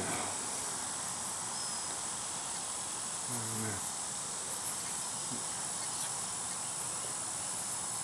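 Steady, high-pitched drone of insects, unbroken through the whole stretch.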